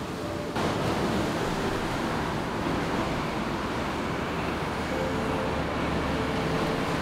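Sea surf washing on the shore with wind on the microphone: a steady rushing noise that gets louder about half a second in.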